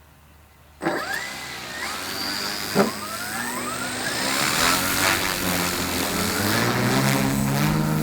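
Electric motor and propeller of a quarter-scale model Spitfire spinning up, starting abruptly about a second in with rising whines and a single click, then a hum that climbs steadily in pitch as the motor winds up.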